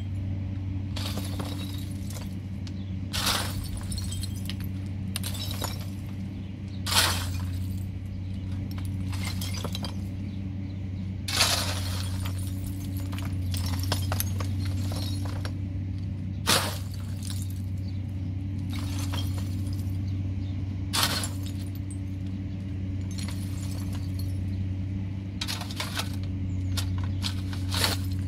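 Sharp clinks and clatters every one to five seconds, over a steady low hum.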